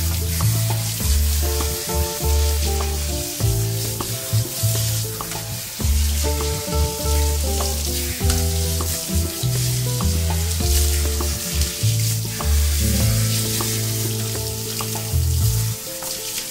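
Water from a handheld shower sprayer hissing steadily as it rinses conditioner out of a dog's thick, wet coat, under background music with a bass line.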